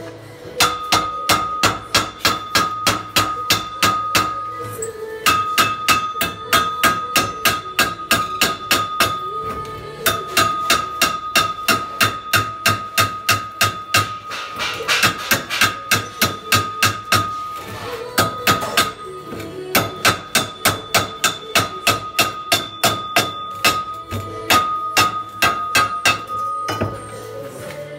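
Claw hammer rapping on a freshly stick-welded joint in a steel pipe, knocking the slag off the weld bead. It strikes fast and evenly, about three to four blows a second, in runs of a few seconds with short pauses, and each run sets the pipe ringing.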